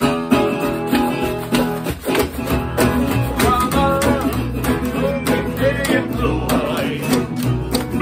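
Acoustic string band playing an upbeat country tune: banjo, guitars and a washboard over an upright bass, with men singing along.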